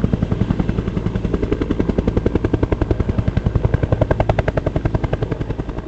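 Helicopter rotor blades chopping, a rapid, even beat of pulses over engine noise, holding steady.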